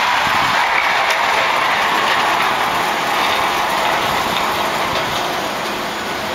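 Automated guideway transit prototype car rolling in toward the platform, a steady mechanical running noise of the vehicle on its guideway that eases a little in the last couple of seconds as it slows to arrive.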